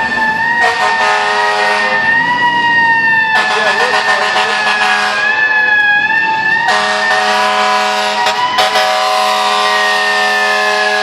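Fire truck's air horn sounding in long blasts over its siren, which wails with a slow rise and fall. The horn breaks off about five seconds in and comes back about a second and a half later, while the siren keeps going.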